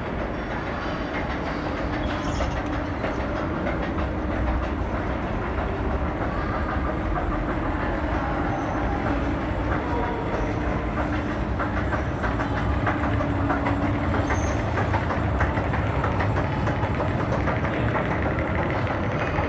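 Metro station escalator running: a steady mechanical hum and rumble with light, rapid clicking.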